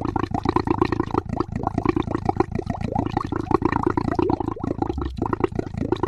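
Boat engine running with rapid, uneven pulses and water sounds, with a brief dip about five seconds in.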